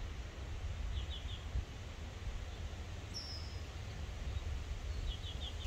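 Birds chirping over a steady low outdoor rumble: three quick chirps about a second in, a single higher whistled note about three seconds in, and another run of three quick chirps near the end.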